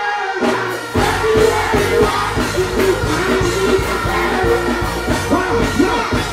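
Live dancehall music: a male artist singing into a microphone over a heavy bass riddim through the stage sound system. The bass and beat are cut briefly and come back in about a second in.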